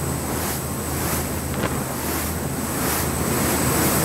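Passenger ferry under way: a steady low engine drone beneath the rush of water churned along the hull, with wind blowing across the microphone.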